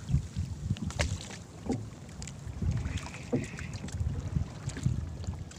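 Water sloshing around a small paddled outrigger boat, with wind buffeting the microphone in uneven low thumps and a few sharp knocks and clicks.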